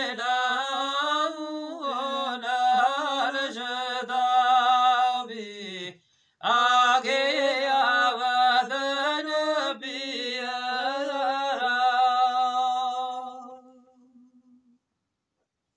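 A man chanting Gojri devotional verse unaccompanied, in long held, wavering notes. It comes in two drawn-out phrases, with a short break about six seconds in, and the second phrase fades away near the end.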